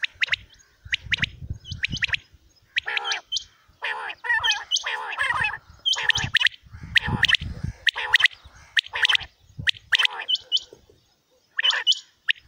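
Caged common quails calling over and over in quick, short sharp notes, with some harsher, rougher calls mixed in partway through.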